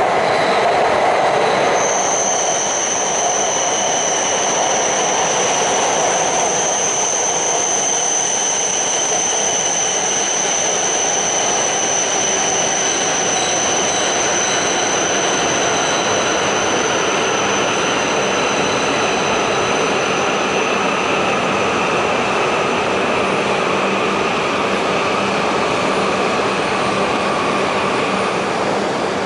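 Tohoku Shinkansen train (an E6 Super Komachi coupled to an E5 Hayabusa) rolling slowly into the station on curved track. A high steady squeal starts a couple of seconds in and fades after about twenty seconds, while lower whines slowly fall in pitch as the train slows to arrive.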